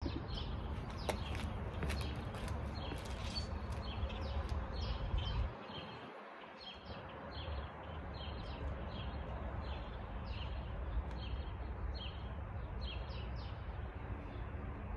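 A bird repeating short, falling chirps, about two a second, over a low steady rumble that dips briefly about six seconds in. A few sharp clicks sound in the first few seconds.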